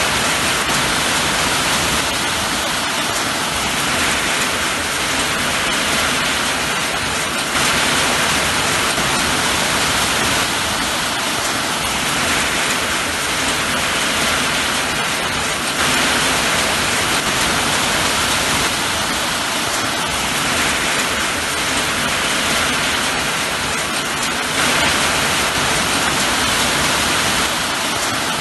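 Steady rain falling, a dense even hiss that swells slightly every eight seconds or so.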